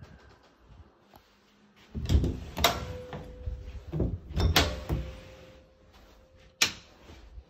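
An interior door opened by its lever handle: the latch clicks and the door rattles and swings, with handling noise. Near the end comes a single sharp click of a wall light switch being pressed.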